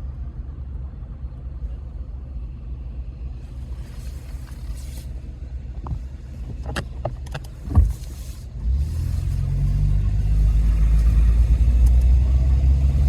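Vehicle engine and road rumble, heard from the vehicle. There is a single knock about eight seconds in, and the rumble grows louder just after as the vehicle pulls away or speeds up.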